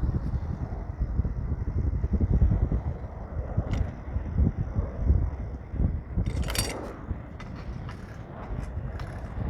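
Fluctuating low rumble of wind buffeting the microphone outdoors, with a short hiss about six and a half seconds in.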